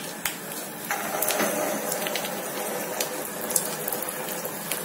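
A paneer-and-potato kofta ball deep-frying in hot mustard oil in a small pan: the sizzle starts about a second in as it goes into the oil and carries on as a steady hiss with scattered crackles.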